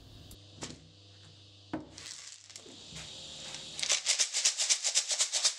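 Knife and tumbling stones rattling inside a capped PVC pipe shaken back and forth by hand, a fast, even rattle starting about four seconds in, stone-washing the blade's finish. Before it, a few light clicks and knocks as the end cap is fitted.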